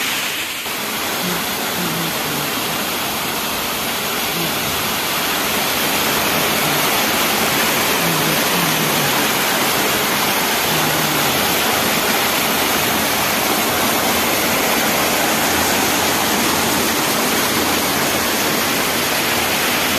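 Steady rushing and splashing of water pouring down the tiered steps of a water-treatment plant's cascade aerator into a churning channel below.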